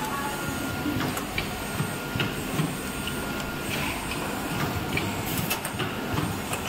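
Steady running noise of workshop machinery, with scattered light clicks and ticks.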